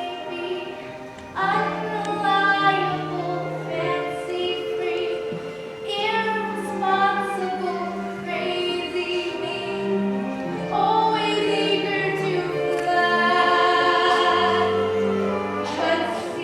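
Voices singing a show tune over instrumental accompaniment, with long held, sliding notes above a steady bass line.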